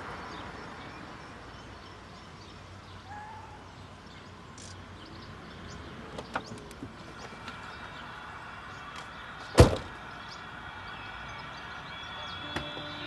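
Quiet street background with a few faint clicks, then a single loud slam of a car door about ten seconds in.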